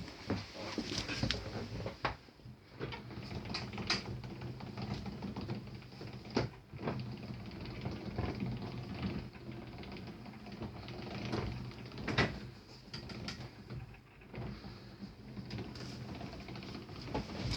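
Nissan Marine 18 two-stroke outboard running steadily at low speed, with scattered sharp clicks and knocks over it.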